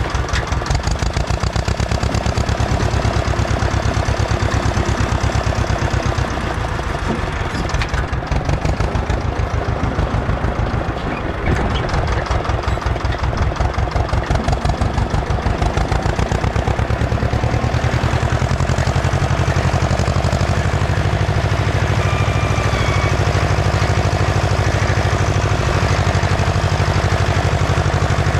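Ursus C-335 tractor's diesel engine running under load while pulling a disc harrow, a low pulsing beat that is uneven for a few seconds in the middle and steadier and fuller in the last third.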